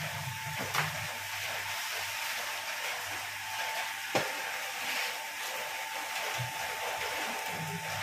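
Horizontal plastic-pellet mixer running, with a steady whine and a continuous hiss of plastic pellets moving through the machine at its discharge chute. A couple of sharp knocks come about one and four seconds in.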